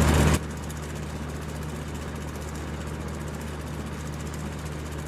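Ceiling fan running with a steady low hum. A louder sound cuts off abruptly about half a second in.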